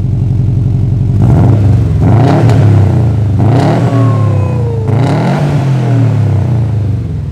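2018 Subaru WRX STI's turbocharged 2.5-litre flat-four (EJ25) running through a new GReddy catback exhaust with 3-inch mandrel-bent piping and a titanium tip. It idles, is revved three times, and settles back to idle near the end.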